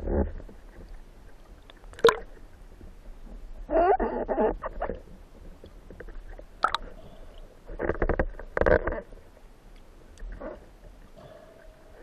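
Underwater sound picked up by a camera mounted on a speargun: irregular sharp clicks and knocks with gurgling, over a low steady rumble. There is a burst of about a second near four seconds in and a cluster of knocks around eight to nine seconds in.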